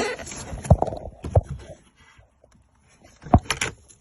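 Handling of a loosened car door trim panel: scraping and rustling of plastic, then three sharp knocks and clicks as the panel is worked and its electrical plug is pulled free.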